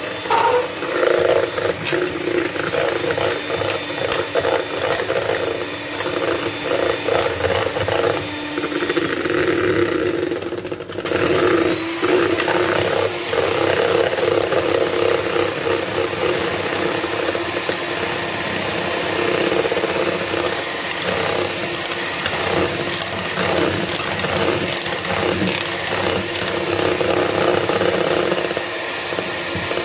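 Electric hand mixer running at speed with its twin beaters whipping eggs in a bowl: a steady motor whir with rapid clatter of the beaters, briefly dipping about a third of the way through. The eggs are being beaten to a froth for cake batter.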